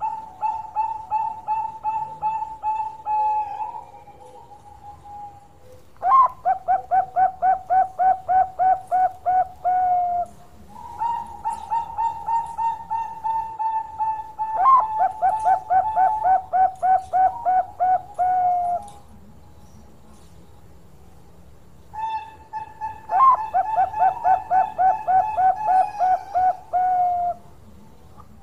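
A Perkutut Bangkok zebra dove singing: four bouts of cooing, each a drawn-out note that breaks into a quick, even run of rolling pulsed notes, about four a second.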